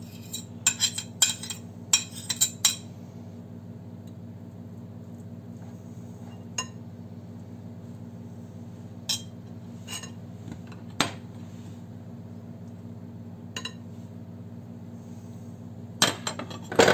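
A spoon scraping and clinking against a glass mixing bowl and a ceramic plate while crumbled cheese is scraped into a thick vegetable batter and stirred: a quick run of clinks in the first few seconds, then single clinks every few seconds, and a clatter of ceramic plates set down near the end, over a steady low hum.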